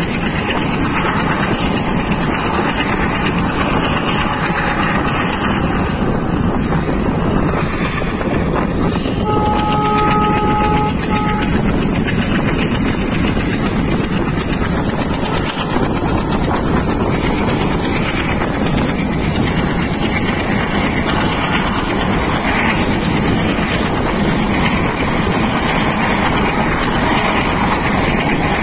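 Indian Railways ALCO diesel-hauled train running, heard from a coach window: a steady loud rush of train and wind noise. About nine seconds in, the locomotive's horn sounds for about two seconds, followed by a short second toot.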